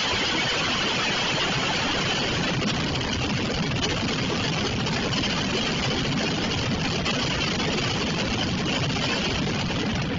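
Mascletà firecracker barrage: dense crackling of firecrackers merging into a steady rumble.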